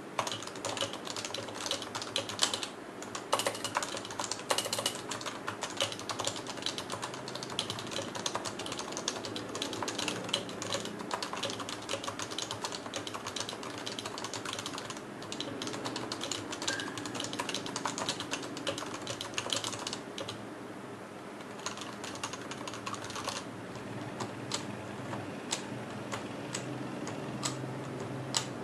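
Continuous fast typing on a Topre electrostatic capacitive keyboard: a dense run of key strokes that thins out briefly about two-thirds of the way through.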